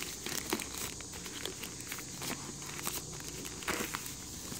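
Thin plastic wrapping crinkling and rustling in short, irregular crackles as a drone's remote controller is slid out of it by hand.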